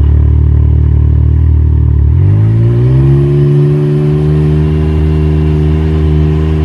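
Can-Am Maverick X3's turbocharged three-cylinder engine breathing through an Evolution Powersports full exhaust. It idles, revs up about two seconds in to a steady higher speed, holds there, and drops back to idle at the very end.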